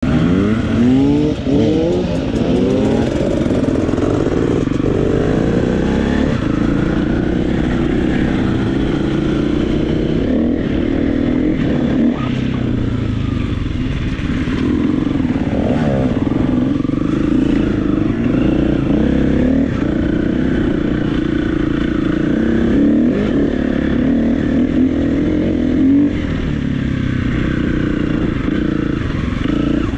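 KTM 350 EXC-F's single-cylinder four-stroke engine running under way, its pitch rising and falling with the throttle, with a quick rise in revs about a second in.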